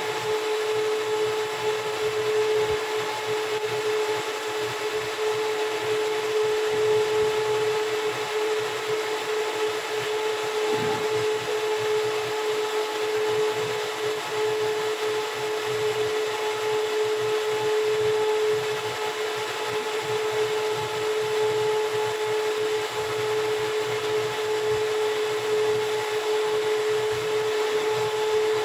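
Steady machine hum with one constant pitched tone and an even whirring noise over it, unchanging throughout.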